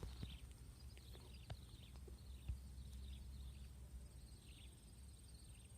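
Near silence: faint outdoor ambience with a steady high insect-like whine, scattered faint high chirps and a few small clicks.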